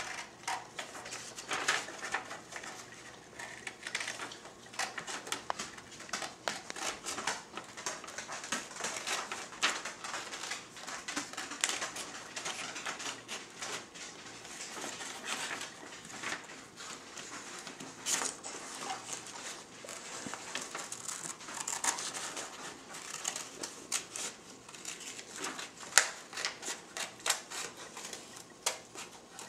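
Scissors snipping through a sheet of printer paper in many short, irregular cuts, with the paper rustling as it is turned.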